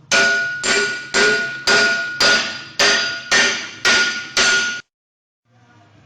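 Hammer blows on metal: nine evenly spaced strikes, about two a second, each ringing and dying away before the next. They stop abruptly about five seconds in.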